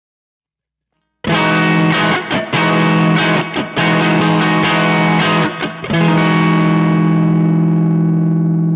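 Distorted electric guitar chord chopped into a stuttering rhythmic pattern by a BOSS SL-20 Slicer pedal, the sound cutting in and out in short gaps, then a chord left ringing steadily for the last few seconds.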